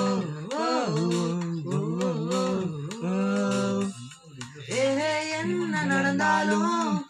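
A man humming a melody in long held notes that slide up and down, with a brief pause about four seconds in.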